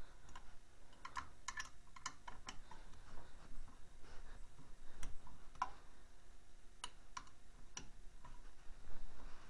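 Irregular light metallic clicks and taps of an Allen key being fitted and turned to tighten a bolt on a snowmobile clutch. The clicks come in a quick cluster over the first couple of seconds, then sparser ones follow.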